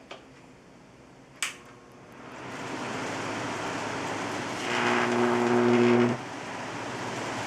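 Electric arc between carbon battery rods powered by a microwave oven transformer. Two sharp snaps come near the start, then a crackling hiss builds up. About two-thirds of the way through it swells into a loud electrical buzz with a low hum for a second or so, then drops back to a steadier crackling hiss.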